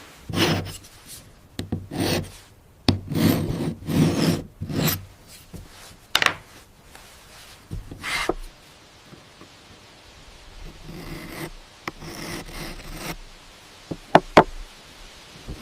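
A hand tool rasping across stone in irregular short strokes, with a few sharp taps in between.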